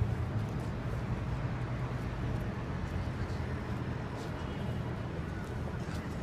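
Steady low rumble and hum of city background noise, with a few faint ticks over it.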